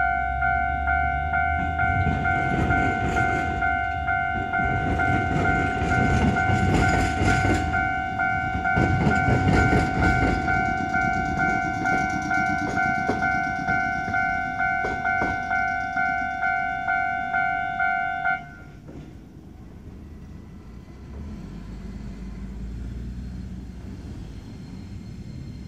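Japanese level-crossing alarm ringing in a steady pulsing two-tone electronic ding while a suburban train rumbles and clatters across the crossing, its wheels clacking over the tram–railway diamond crossing. The alarm cuts off suddenly about 18 seconds in, leaving a low traffic rumble.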